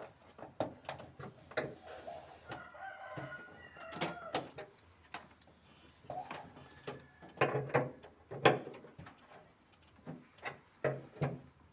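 A rooster crows once, a drawn-out call starting about two and a half seconds in. Scattered short metallic clicks and knocks of hand tools run throughout, the loudest about eight and a half seconds in.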